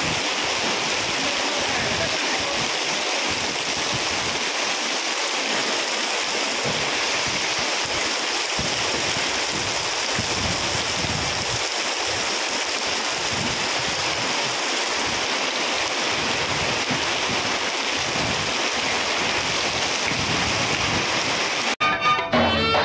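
Rain falling steadily, a loud, even hiss. Near the end it cuts off abruptly and music starts.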